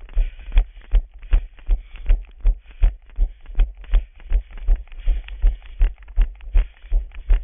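A runner's footfalls on stone paving at a steady running cadence, about three a second, each a dull low thump.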